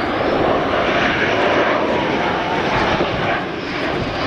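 Sukhoi Su-27's twin AL-31F turbofan engines in flight: a loud, steady jet roar that dips slightly near the end.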